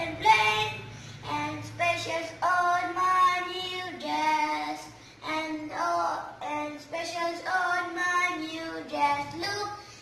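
A young boy singing a song solo, in phrases a second or two long with short pauses for breath between them.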